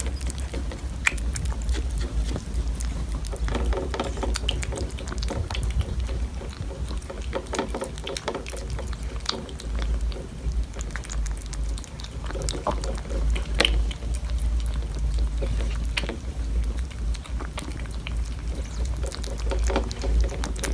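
Kittens eating soft wet food from bowls: many small wet clicks and smacks of lapping and chewing, over a low steady rumble.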